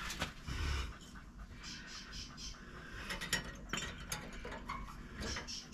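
Faint scattered clicks, taps and light scraping of metal brake parts and tools being handled at the rear brake caliper while the pads are being changed.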